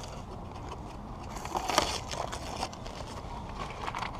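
Blue painter's tape being peeled off a motorcycle's painted part and crumpled, a crackling crinkle with the sharpest rip about two seconds in, over a low steady rumble.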